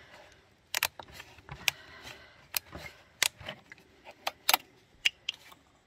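About ten sharp, irregular clicks and light knocks of small parts being handled: the oil bottle and the engine's oil filler cap being worked while the new wood chipper's engine is readied to be filled with oil.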